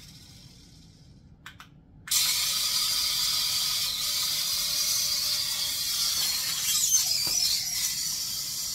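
Small coaxial-rotor toy helicopter, a hand-controlled IR flying figure, spinning up about two seconds in. Its tiny electric motors and twin rotors make a steady high-pitched whir.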